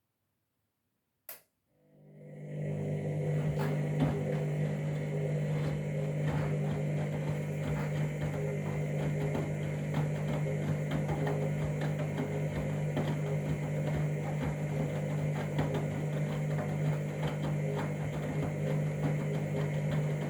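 Candy washing machine starting a Whites 40 wash: a single click about a second in, then a steady hum and rushing sound that builds up over about a second and holds, with scattered small clicks, typical of the machine drawing water through its inlet valve at the start of the cycle.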